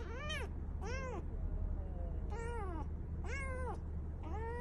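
Kitten meowing: five short, high mews about a second apart, each rising and falling in pitch, over a low steady hum.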